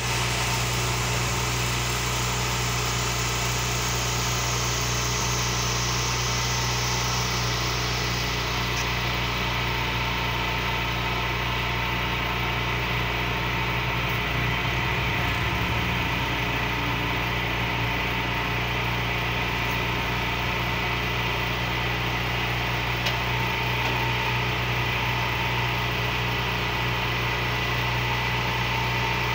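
An engine idling steadily, a constant low hum that holds the same speed throughout.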